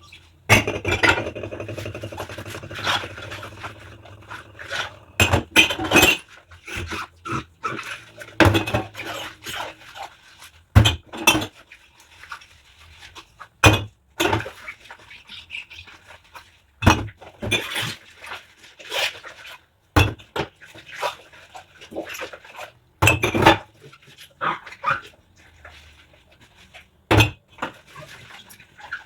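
Dishes and cutlery clinking and knocking together during hand dishwashing, in irregular sharp clatters, with squeaks from rubber gloves rubbing on wet dishes. A dish rings briefly about half a second in.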